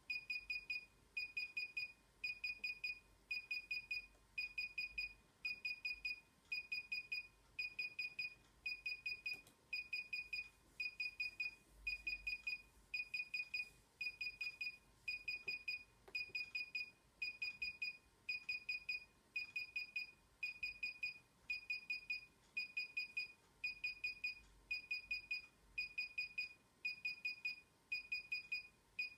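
DJI Inspire 1 remote controller beeping steadily while its firmware installs: quick runs of high beeps, about four runs every three seconds. The beeping is the controller's signal that an update is in progress.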